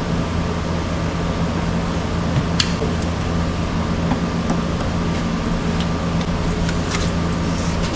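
A steady mechanical hum with a low drone, broken by a few light clicks and taps.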